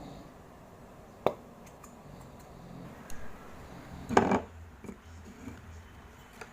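Handling noise from objects being set down and moved: a sharp click about a second in, a few faint ticks, and a louder brief clatter about four seconds in.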